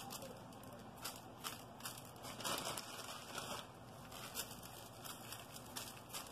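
Sesame seeds sprinkled by hand onto braided challah dough and a metal baking pan: faint, irregular light crackling and ticks.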